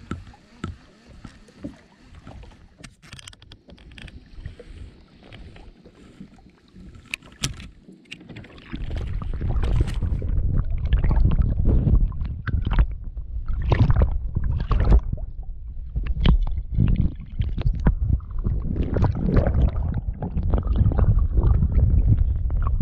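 Sounds of a fishing kayak on the water: scattered knocks and water splashing against the hull. About nine seconds in, a loud low rumble of wind on the microphone sets in under repeated splashes and knocks.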